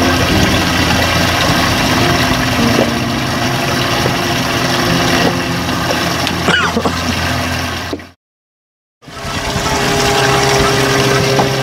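Boat engine idling steadily. It cuts to silence for about a second after the two-thirds mark, then comes back running.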